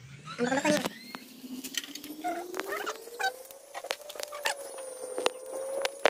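Metal tongs clicking and scraping against a charcoal grill as a fish is turned over the coals. Behind it runs a faint steady tone that slowly rises in pitch, with a short pitched sound about half a second in.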